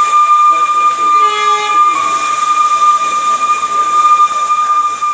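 Vintage steam locomotive's whistle blowing one long, steady high note over a hiss of steam as the engine draws in. About a second in, a second, lower tone sounds briefly alongside it.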